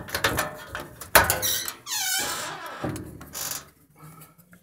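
Clothes dryer door pulled open: a run of clicks and rattles, a sharp pop from the latch about a second in, then a squeak that falls steeply in pitch.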